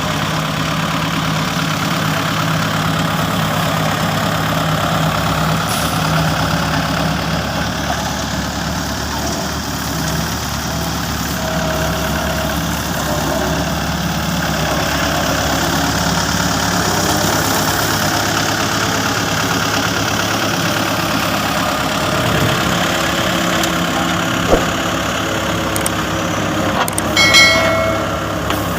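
Engine of heavy road-construction machinery running steadily, with one sharp click late on and a brief high tone with overtones near the end.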